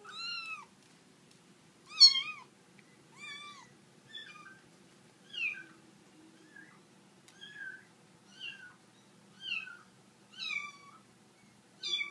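Kitten meowing over and over in short, high-pitched cries, about one a second, the loudest about two seconds in.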